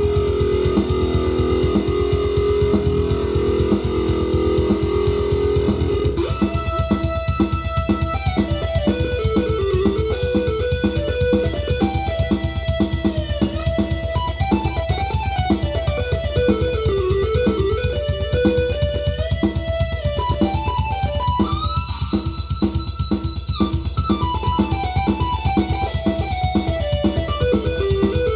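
Korg Krome synthesizer playing a driving, fast, even rhythm with guitar-like plucked sounds. A melody line comes in about six seconds in.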